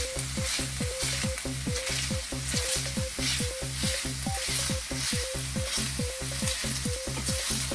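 Chopped onions and garlic sizzling in oil in an enamelled cast-iron skillet, with a spatula stirring and scraping them around the pan. A low, regular pulsing sound repeats about four times a second underneath.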